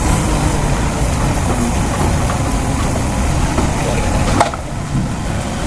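Diesel forklift engine running steadily while its extended forks are worked under a container. About four seconds in there is a sharp knock, after which the engine runs a little quieter.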